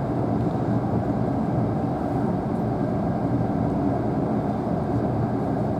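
Steady running noise inside the passenger cabin of a Tobu Spacia X (N100 series) limited-express electric train: an even rumble of the train rolling on the rails.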